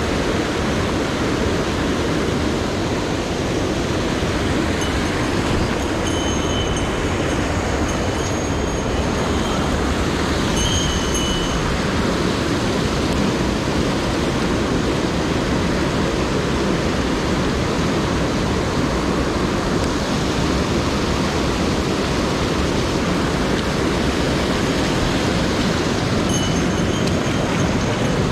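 Loud, steady rush of a mountain stream's whitewater cascade tumbling over boulders.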